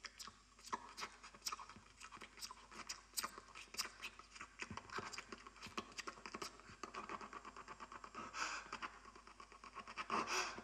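A man breathing and panting into a close headset microphone, with many small mouth clicks, about two a second. There are two louder breaths, one past the middle and one near the end.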